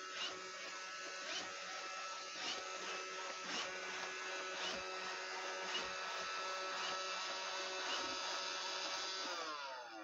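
iRobot Roomba 500-series robot vacuum running underclocked: a steady whirring of its motors with several held tones and a faint click about once a second. Near the end the tones slide down in pitch as it winds down.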